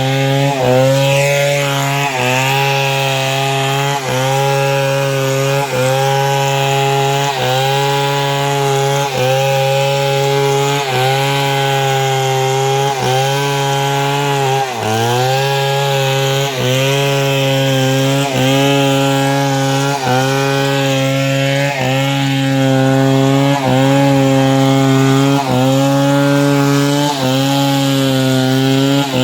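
Two-stroke chainsaw running at high revs under load, ripping through timber to cut planks. The engine note holds steady but dips briefly about every second and a half as the chain bites, with one deeper dip and recovery about halfway through.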